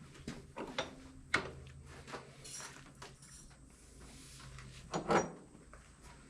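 Broken mower deck caster parts being handled: scattered light clicks and metal clunks, with the loudest pair of knocks about five seconds in.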